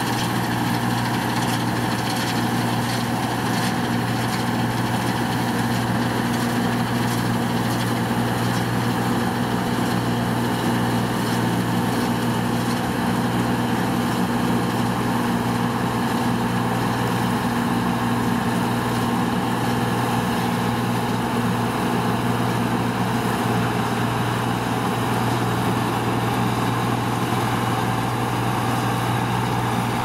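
New Holland Clayson 1530 combine harvester running steadily at constant speed while harvesting oats, its engine and threshing machinery at an even pitch.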